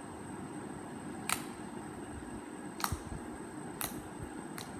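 Fingers poking purple polka dot slime, making four sharp little clicks about a second apart over a steady background hiss.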